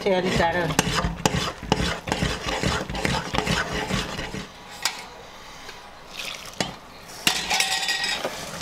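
Buckwheat flour and water being stirred into thick dhido in a metal pot with a metal spoon: the spoon scrapes and knocks against the pot, and the wet dough squelches. The stirring goes quieter about halfway through, then picks up again near the end.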